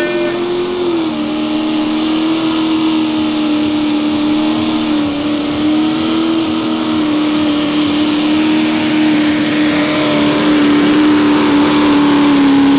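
Mini modified pulling tractor's engine running flat out at high revs under the load of a weight-transfer sled. It holds one loud, steady pitch that dips slightly about a second in.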